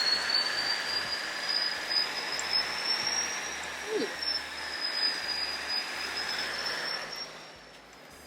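Four-wheel drive on the move, with steady road and engine noise and a thin high whine that drifts slowly up and down in pitch; the noise falls away about seven and a half seconds in.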